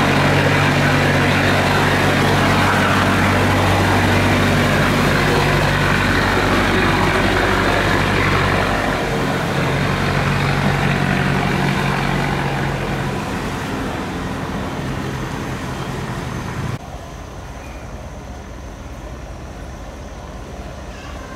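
Heavy boat engine running with a steady hum, over a loud wash of rushing water. The engine's pitch shifts about nine seconds in, and the sound drops away abruptly near the end.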